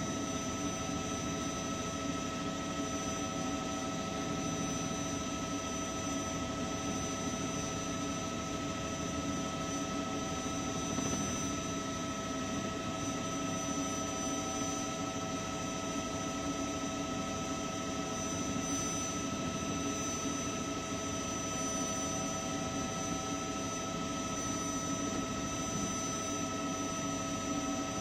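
News helicopter's turbine engine and rotor running steadily, a constant drone with a steady high whine.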